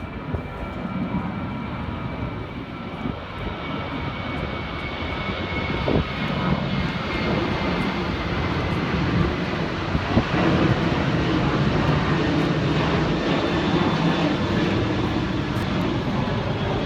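Airliner taking off, its engines at full takeoff power, the noise growing steadily louder as it approaches.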